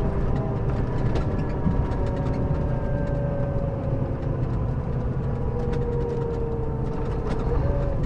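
Scania K400B coach's rear-mounted diesel engine running steadily with a deep hum, its note easing slowly lower through the middle.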